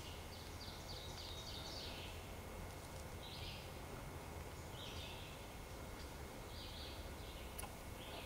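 Songbirds singing: short high-pitched notes repeat every second or two, including a quick run of about six notes that grows louder near the start. A faint steady low rumble of background noise lies underneath.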